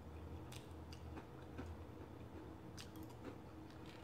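Faint, scattered light clicks of a metal fork tapping a plate while cutting into fried cod, over a low steady hum.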